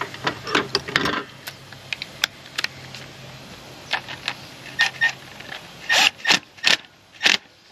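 Tools and engine parts being handled: a series of sharp clicks and knocks, the loudest near the end, over a low steady hum that stops about halfway through.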